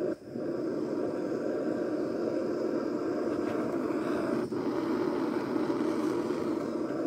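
Handheld gas torch burning with a steady hiss as its flame is held into a bee smoker to light the fuel. The hiss dips sharply for a moment just after the start and again about four and a half seconds in.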